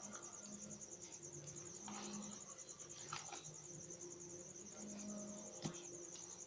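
Faint, continuous high-pitched pulsing trill of a cricket, with soft squelches of hands kneading a mashed potato and chicken mixture in a plastic bowl.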